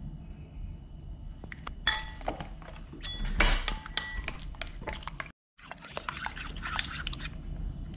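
Metal spoon stirring and clinking in a ceramic bowl, mixing egg white, cooking oil and starch into a batter. One ringing clink comes about two seconds in, then a run of quick clicks and scraping. The sound cuts out briefly a little past five seconds, then wet stirring goes on.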